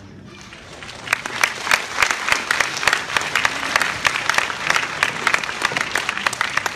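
Audience applause starting about a second in, after a short lull, and continuing as dense, steady clapping.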